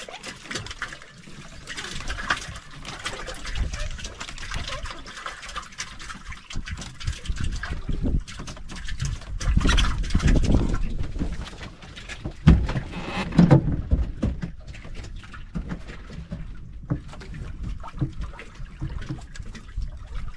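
Sea water sloshing and lapping against the hull of an outrigger boat, with irregular small splashes and knocks. A louder splash comes about halfway through, followed by a couple of sharp knocks.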